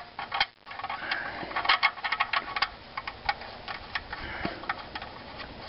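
Quick, irregular light clicks, thickest in the first few seconds and sparser after: the oil drain plug being started back into the oil pan by hand.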